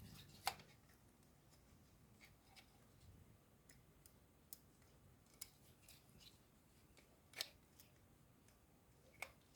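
Faint, scattered light clicks and taps of small parts being handled and fitted, about half a dozen in all, the clearest a little past seven seconds in, with near silence between them.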